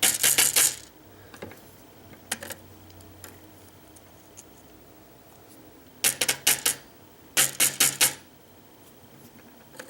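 Small metal lock parts (pin tumblers and springs from the lock's core) clicking and clattering onto a hard surface while the lock is disassembled, in several short bursts of rapid clicks with two longer rattles near the end.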